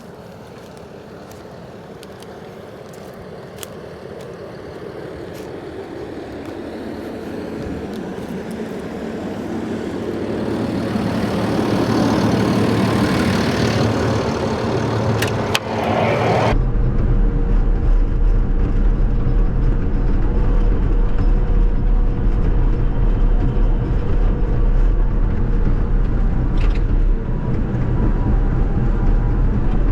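Caterpillar D6K2 XL bulldozer's diesel engine running, growing steadily louder over the first twelve seconds. About sixteen seconds in there is a knock, and the sound changes at once to a deep, steady rumble with a hum and the high end cut off, as heard from inside the closed cab.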